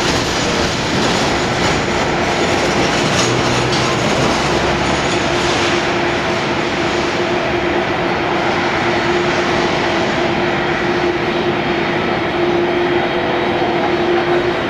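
Jet engines of a taxiing Airbus A300-600R running at idle: a steady rushing noise with a constant tone held underneath.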